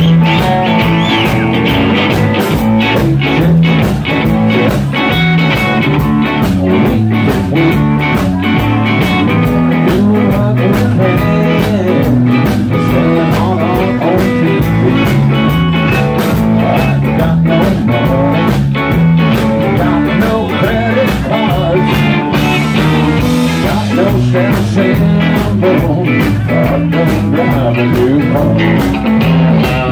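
Live blues-rock band playing an instrumental stretch of a song: electric guitar over bass and a steady drum beat.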